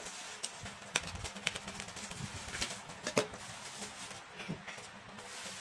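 Bubble wrap rustling and crackling as a plastic-wrapped album is slid out of a bubble-wrap pouch, with a few sharp crinkles.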